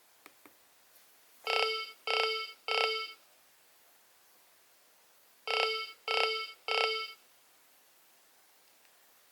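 Nokia 2300 mobile phone playing a ringtone through its small speaker: three identical short beeps of the same pitch, a pause, then the same three beeps again. Two faint clicks come just before the first beep.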